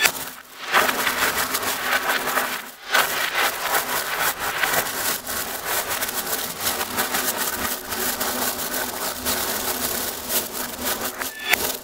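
Dense metallic clattering and clicking of many 5×25 mm neodymium magnet cylinders and 10 mm chrome-plated steel balls, snapping and scraping together as hands rake through a magnet lattice. The clatter seems to be played backwards, with two short lulls early on.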